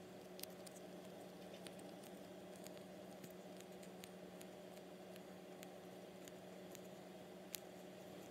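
Faint, scattered clicks and taps of fingers and fingernails on a clear plastic candy mould as soft candy dough is pressed into it, with the sharpest click near the end, over a steady low hum.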